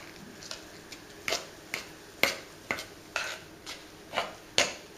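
A utensil stirring stiff cake-mix dough in a glass mixing bowl, clinking against the glass in sharp knocks about twice a second.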